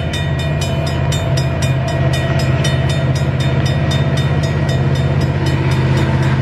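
Level-crossing warning bell ringing at about four strokes a second, fading near the end, over the steady low drone of approaching CN diesel freight locomotives that grows slowly louder.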